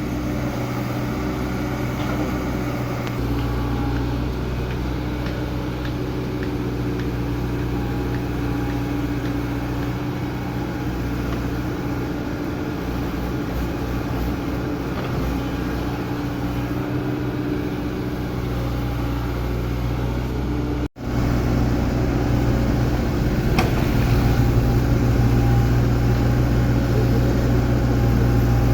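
Hydraulic excavator's diesel engine running steadily. The sound drops out for an instant about 21 seconds in, then runs on slightly louder.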